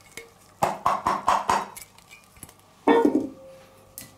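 A kitchen utensil knocks about five times in quick succession against a bowl, each knock ringing, as chopped onions are tipped into the marinade bowl. A louder ringing clatter of dishware follows, its tone hanging on for about a second, then a last click.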